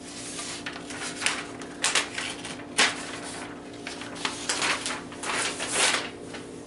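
Whiteboard eraser rubbing across a gridded dry-erase board, wiping off a worked graph in six or seven quick swipes, the longest near the end. A steady low hum runs underneath.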